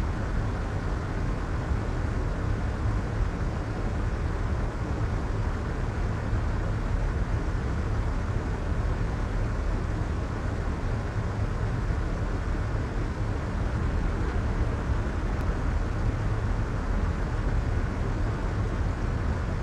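Steady soft white noise, a smooth hiss weighted toward a deep low rumble and dull at the top, holding level throughout.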